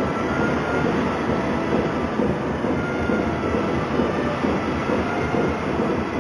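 Steady mechanical rumble and rattle of machinery running, with faint steady whining tones above it.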